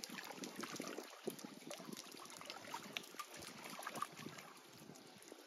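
Hands groping and splashing in shallow, muddy pond water while feeling for fish by hand, with small, irregular splashes and drips.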